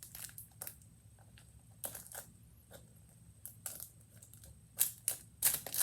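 Stiff plastic packaging crackling and clicking in scattered sharp bursts as it is handled and pried at, while it resists being opened.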